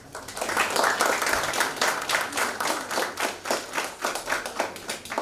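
Small audience applauding: dense clapping that thins out to a few scattered claps near the end.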